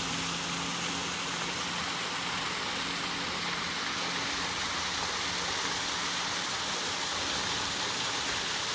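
A small mountain waterfall and creek rushing, with the falling water making a steady, unbroken hiss.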